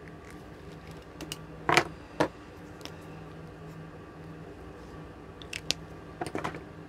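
Pens and pen caps being handled on a desk: a few sharp clicks and taps, the loudest about two seconds in and another cluster near the end. Under them runs the steady whirr of a room heater.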